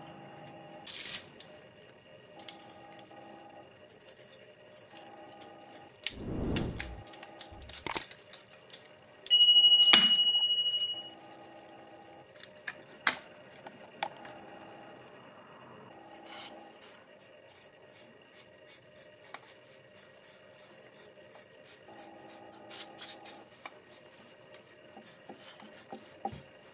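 Small metal parts of a rusty, dirt-caked model car clicking, scraping and rubbing as they are worked loose by hand. A dull rumbling knock comes about six seconds in, and a sharp metallic ring about nine seconds in fades over a second or so.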